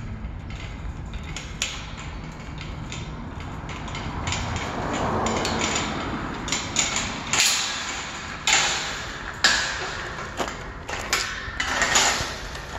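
Footsteps crunching on loose river-rock gravel, irregular, with the sharpest and loudest steps in the second half.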